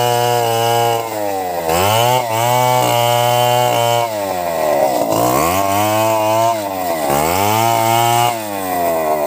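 Two-stroke chainsaw running at high revs while cutting through a log. Its pitch sags as the chain loads up in the cut and climbs back again, several times over, with the deepest drop around the middle.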